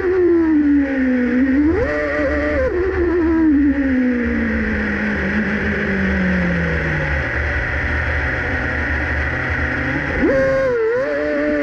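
Alfa Romeo Racing Formula 1 car's engine heard from an onboard microphone at low speed: a quick rev blip about two seconds in, then the revs fall away slowly and settle low for a few seconds, before a sharp rev rise near the end.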